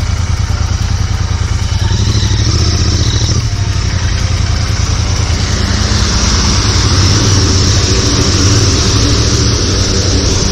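Royal Enfield motorcycle engine running steadily while riding, under a dense steady hiss that grows brighter about halfway through.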